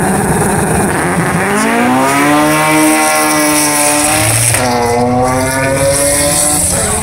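Two drag cars, a B18C-engined Honda Civic EK4 and an Opel Corsa, revving at the start line, then launching and accelerating at full throttle with steadily rising engine pitch. There are gear changes about four and a half seconds in and again near the end.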